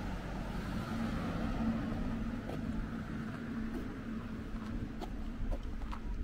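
A car passing close by on a residential street, its tyre and engine noise swelling to a peak about two seconds in and then fading.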